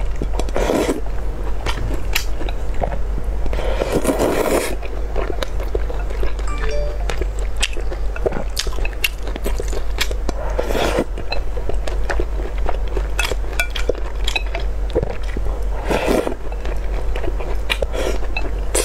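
Noodles being slurped and chewed: a few drawn-out slurps among steady wet chewing clicks, over a constant low hum.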